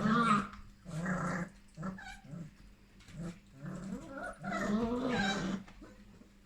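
Vizsla puppy growling over a piece of beef, in several short bouts with the longest about five seconds in.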